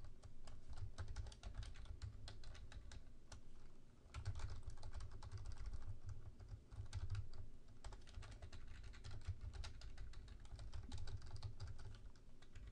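Fast typing on a computer keyboard: a dense run of key clicks, with a brief pause about four seconds in.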